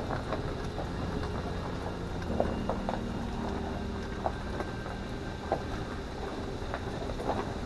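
Toyota 4Runner driving: a steady engine and road rumble with an engine tone that shifts about two and a half seconds in, and scattered knocks and rattles throughout.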